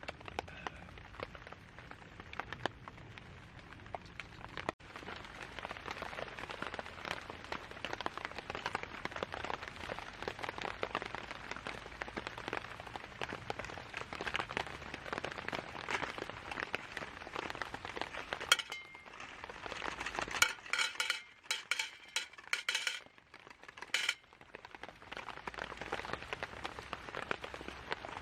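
Metal utensils clinking and scraping against a cast-iron skillet and dishes during campfire cooking, over a steady fine crackle. A cluster of sharp ringing clinks comes a little past the middle.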